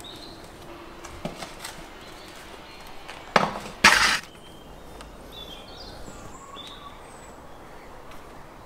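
A foil-covered metal baking pan set down and slid across the brick floor of a wood-fired oven: a sharp clatter a little over three seconds in, then a longer scrape half a second later.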